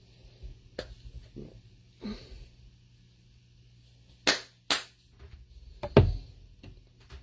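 Sharp clicks and knocks from a jar of onion powder being handled: two quick loud clicks a little past four seconds in, and a heavier thud near six seconds, like the jar being set down on the counter.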